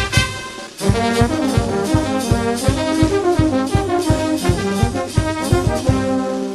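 Brass band music: trumpets and trombones play a melody over a steady drum beat of about four beats a second. The music briefly drops away just before a second in, then the brass comes back strongly.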